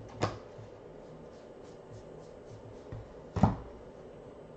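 Stack of baseball trading cards flipped through by hand: faint flicks of card stock, with two sharper taps, one just after the start and a louder one about three and a half seconds in.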